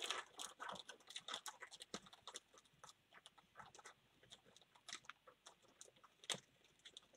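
Faint clicks and crinkles of trading cards being handled, dense for the first couple of seconds, then sparser, with one sharper click near the end.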